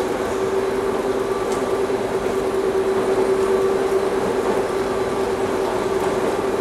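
Bombardier rubber-tyred automated metro train running at steady speed, heard from inside the front car: tyres rumbling on the concrete guideway under a steady hum that holds one pitch.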